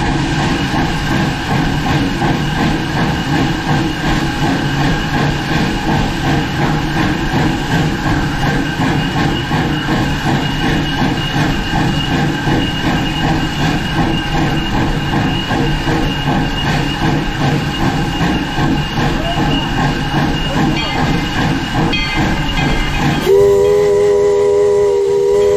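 Virginia & Truckee No. 25, a 4-4-0 steam locomotive, running along with a steady busy noise of exhaust and running gear. Near the end its steam whistle sounds, a held chord of several tones.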